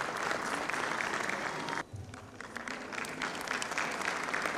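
Audience applauding: a dense spatter of hand claps that cuts off abruptly about two seconds in, then picks up again.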